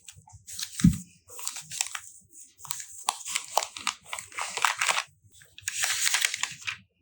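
Plastic packaging crinkling and rustling as it is handled, in several irregular bursts, with a short thump about a second in.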